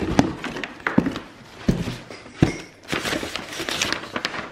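H&M mail-order parcel bag being handled and opened: rustling and crinkling, broken by many sharp taps and clicks.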